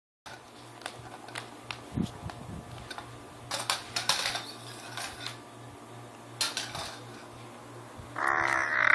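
Small clicks and rustles over a faint steady hum, then about eight seconds in a baby starts a loud, pitched, wavering vocal sound.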